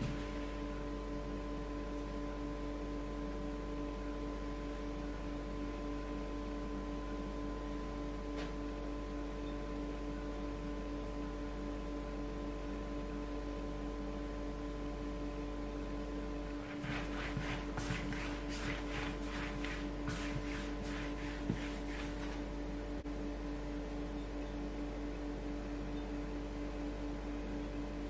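A steady hum made of several held tones that never change, with a run of quick, evenly spaced clicks for about five seconds a little past the middle.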